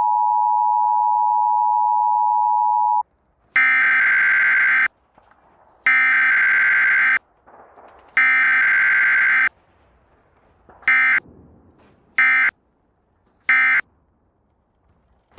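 Electronic beeping: a steady single tone for about three seconds, then three long beeps and three short beeps, evenly spaced.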